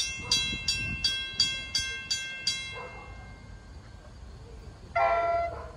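A railroad grade crossing bell rings about three strikes a second and stops about halfway through. Near the end a train horn gives one short blast.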